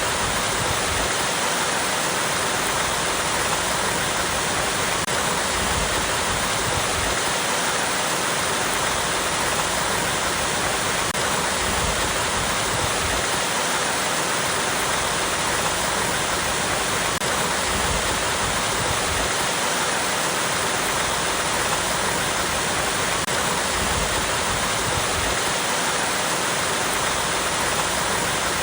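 Small waterfall cascading over rocks: a steady, unbroken rush of falling water.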